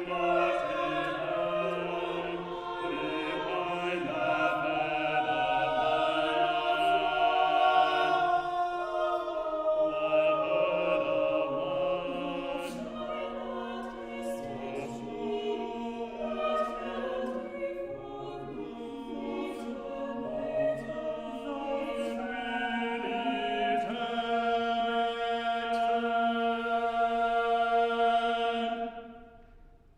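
Church choir singing the final phrases of a choral piece, ending on a long held chord that is released and dies away near the end.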